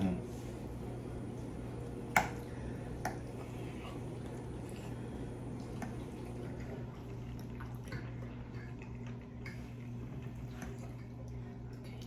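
Soft wet chewing and mouth sounds of people eating creamy pasta, with two sharp clicks about two and three seconds in, a metal fork knocking against the glass baking dish. A steady low hum runs underneath.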